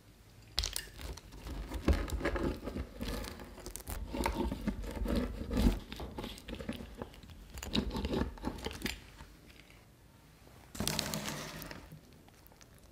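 Pizza wheel cutter rolling through a baked pizza, crunching and scraping through the crust in a series of uneven strokes, followed by one shorter burst of crunching near the end.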